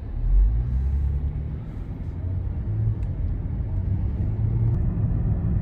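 Low, steady road rumble inside a moving car's cabin, with a brief louder surge about half a second in.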